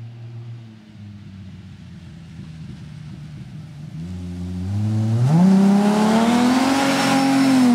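Single-turbo Toyota Aristo with a custom 3.5-inch stainless exhaust and one HKS silencer: a steady lower engine note, then from about four and a half seconds in the engine revs up steeply under hard acceleration, getting much louder. It holds high and then drops sharply right at the end as the throttle is lifted.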